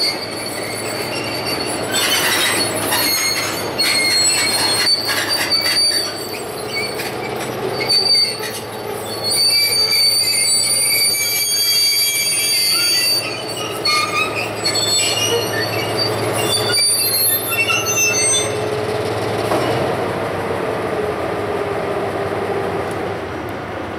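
Shrill metal-on-metal squealing, several high tones wavering on and off, as the turntable swings the ACL 501 streamlined diesel locomotive around, over the steady low hum of the locomotive's diesel engines idling. The squealing dies away about three-quarters of the way through, leaving the engine hum and a low rumble.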